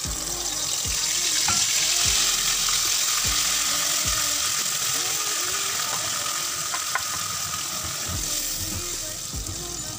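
Marinated chicken in a wet yogurt and green-chutney marinade hitting hot oil in a pot and sizzling, loudest about two seconds in and then easing slowly as the wet mix cools the oil. A few light knocks of the spoon against the bowl sound over the sizzle.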